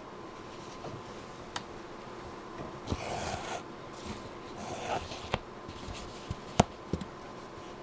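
A long needle thread drawn by hand through lace stitches: two brief rasping swishes, about three seconds in and again near five seconds. Several small sharp clicks from handling the work come between them, the loudest near the end.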